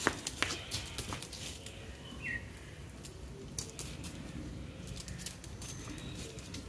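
A man and a dog scuffling at play on a concrete yard: a few sharp clacks near the start and a couple more later, with scraping and pattering between. A bird chirps once about two seconds in.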